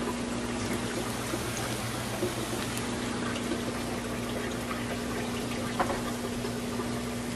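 Plantain slices frying in hot grapeseed oil: a steady sizzle with small crackles, over a steady low hum.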